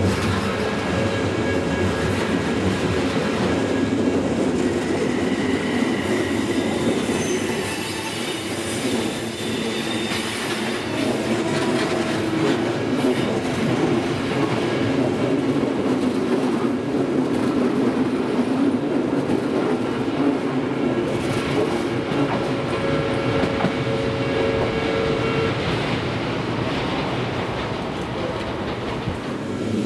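Odakyu Railway express train passing through a level crossing, wheels clattering over the rail joints, with thin steady squeals from the wheels at times.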